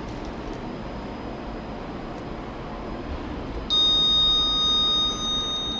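A loud, steady, high-pitched electronic buzzer tone starts abruptly near the end and holds for about two seconds, over a steady low background hum.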